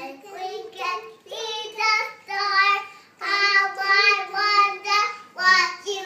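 A young child singing a song in short phrases, with a string of sung syllables and several held notes.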